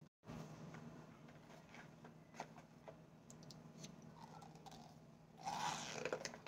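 Faint scattered clicks, then a short burst of crunching near the end as a mouthful of compacted cornstarch chunks is bitten and chewed, over a low steady hum.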